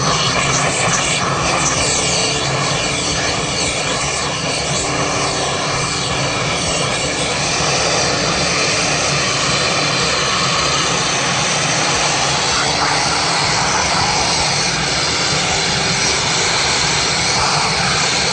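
Daimer Super Max 7000 steam pressure washer running and spraying: a steady, loud rushing hiss with a constant machine hum of several tones underneath.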